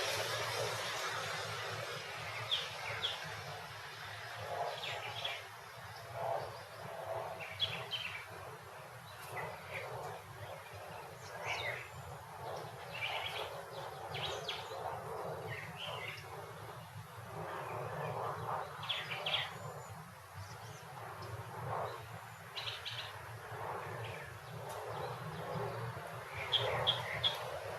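Suburban street ambience: songbirds chirping in short scattered calls over a steady low background hum, with a passing vehicle fading away at the start.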